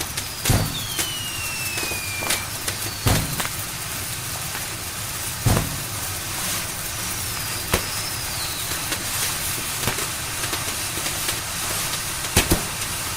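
Fireworks going off: a steady crackling hiss with heavy bangs every few seconds, two close together near the end, and whistling rockets whose pitch falls twice.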